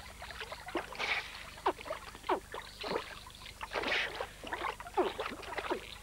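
Giant otters splashing and sloshing through shallow river water as they tussle with a baby caiman: a quick, irregular series of splashes and gulps of water.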